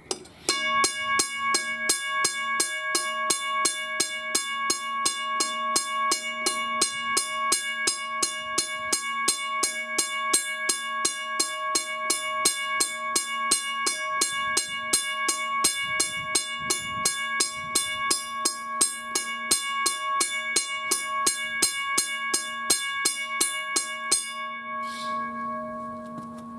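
Railway crossing bell ringing: a steady rapid run of even strikes, each ringing with several steady tones. The striking stops about 24 seconds in and the ring dies away over the next couple of seconds.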